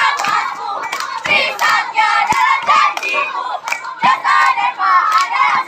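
A group of children singing a Scout yell chant together, with sharp hand claps keeping the rhythm, about two or three a second.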